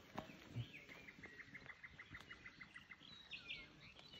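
Faint bird song: a quick trill of short high notes, about eight a second, followed by a few higher chirps near the end. A soft thump about half a second in.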